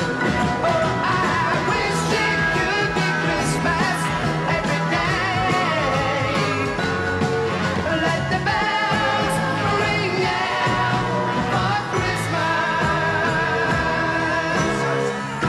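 Pop-rock music with a singing voice, playing steadily.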